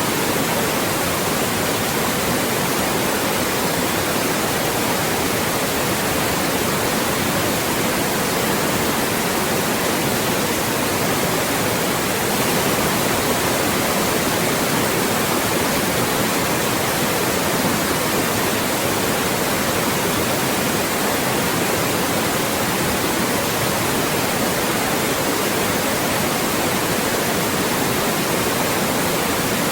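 Loud, steady synthetic white noise, an even hiss across the whole range with no change or events.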